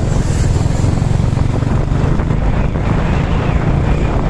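Steady low rumble of wind buffeting the microphone, mixed with the running noise of the vehicle being driven down the street.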